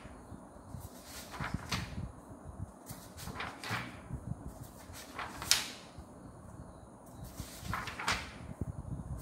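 Sheets of A4 copy paper being handled and turned over, brief papery swishes coming in pairs about every two seconds.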